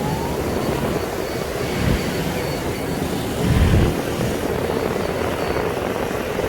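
Motorcycle riding through city traffic: steady engine and road noise, with wind buffeting the microphone in low rumbling gusts about two seconds in and again near four seconds.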